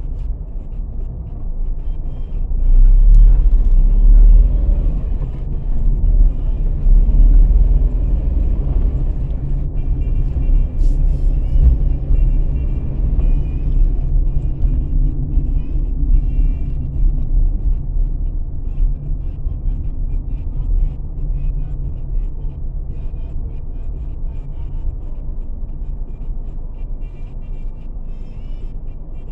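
Low, steady rumble of a car driving in city traffic, heard from inside the cabin, with music faintly in the background.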